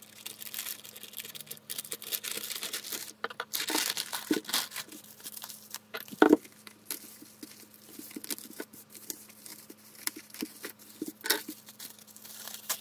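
A plastic courier mailer being torn open, then bubble wrap around a small box crinkling and rustling as it is handled. Irregular crackles throughout, with a few louder snaps.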